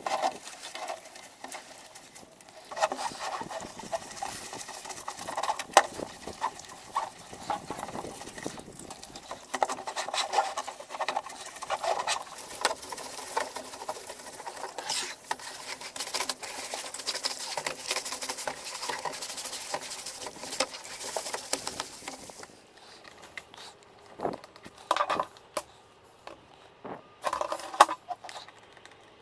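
Stiff-bristled brush scrubbing a wet plastic Nissan hubcap: a dense, scratchy rasp full of small clicks. It stops about twenty-two seconds in, leaving a few scattered knocks as the hubcap is handled.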